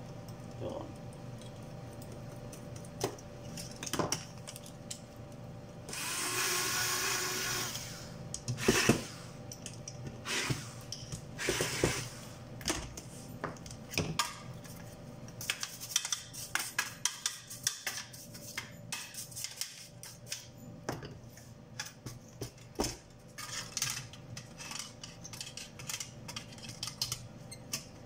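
Hand tools and small parts clicking and knocking against a monitor's sheet-metal chassis and circuit boards while its power-supply board is being refitted, with a two-second hissing scrape about six seconds in.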